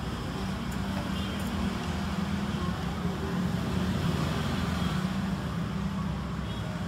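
Steady low rumble of background road traffic that swells slightly about midway.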